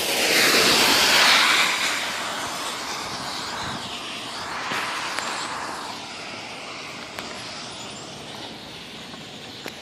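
A vehicle passing on a wet road, its tyres hissing on the water; loudest about a second in, with a second, fainter swell around five seconds in.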